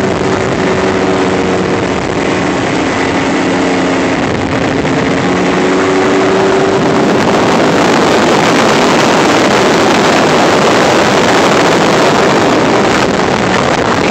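Two-stroke 25 hp Evinrude outboard motor running steadily under way on an aluminum boat, a constant hum. About halfway through a rushing noise grows louder and covers the engine.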